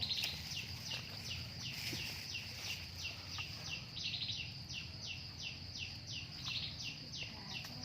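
Steady series of short chirps, each falling in pitch, about two and a half a second: the call of the small animal the hunters are tracking down by ear.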